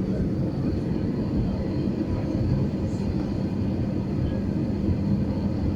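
Airplane noise: a steady low rumble with a faint steady hum and a thin high whine.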